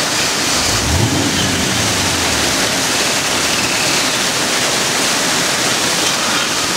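Rushing creek water pouring over rocks, a steady loud noise, with a low rumble swelling about a second in and fading a little later.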